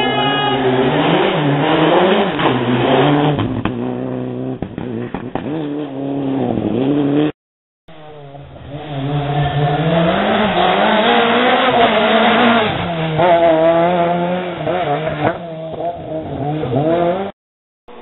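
Rally car engines running hard on a closed special stage, the pitch repeatedly climbing and dropping as they rev up through the gears and shift down. The sound cuts out briefly about seven seconds in, then another run picks up.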